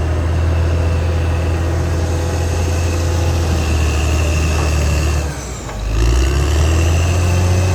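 Caterpillar D6R XL bulldozer's diesel engine running steadily, with a high whine over the low engine hum. The engine note dips briefly about five seconds in, then picks up again.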